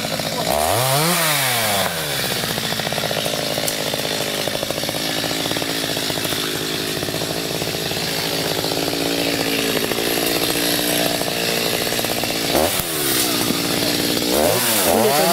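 Chainsaw revving up and back down about a second in, then running steadily through a cut in maple wood, with another rev rising and falling near the end.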